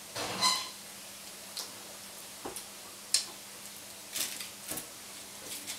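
Scattered small clicks and taps of little plastic toy pieces being handled and set down, about six or seven sharp ticks at irregular intervals, the loudest a little after three seconds in.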